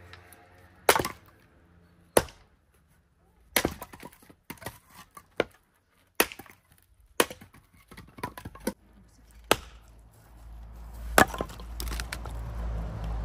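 Firewood being chopped: about ten sharp cracks of blows striking and splitting wood, irregularly spaced, the loudest about eleven seconds in. A low rumble rises in the last few seconds.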